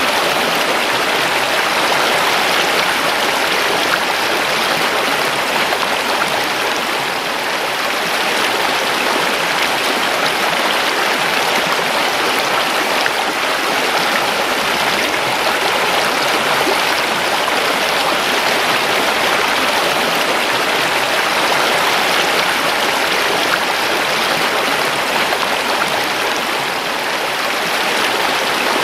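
A river rushing steadily over stones, with small swells in level.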